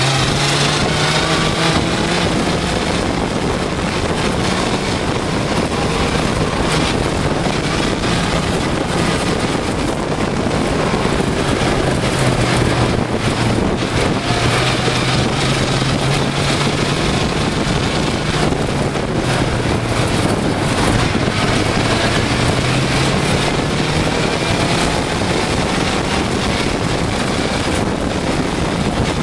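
Suzuki GSX-R600 inline-four motorcycle engine powering an off-road buggy on the move, its pitch rising and falling several times with the throttle, under heavy wind noise on the microphone.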